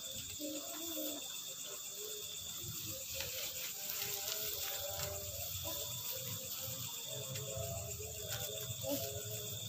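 Crickets chirping in a steady high trill, with faint voices in the background.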